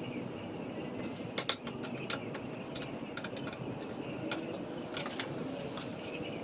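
Scattered light clicks and knocks of wood and metal, with two sharp knocks close together about a second and a half in, as pallet boards are worked apart.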